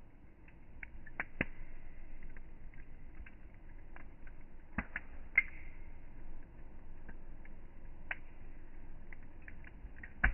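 Wood campfire crackling, with irregular sharp pops and snaps over a low steady hiss of the burning; a few louder pops, one about five seconds in and one near the end.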